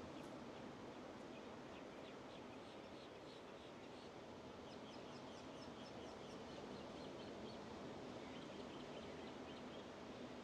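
Atlantic surf washing steadily in the background, with a small bird calling over it in runs of short, high chirps, at about four a second in the middle of the stretch.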